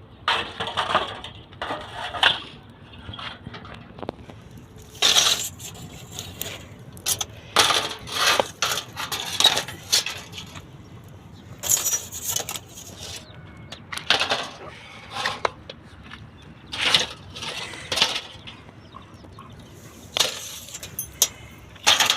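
Irregular metallic clinks and scrapes of kitchen pans and utensils being handled, in a dozen or so short separate bursts.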